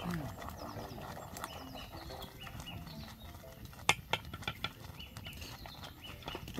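Outdoor animal sounds with short falling bird chirps, and a quick run of sharp knocks about four seconds in.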